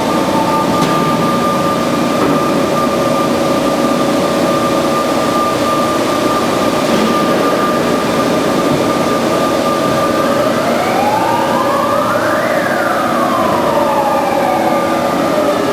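Band saw running with a steady, high mechanical whine. From about ten seconds in, a tone rises in pitch, peaks, and slides back down near the end.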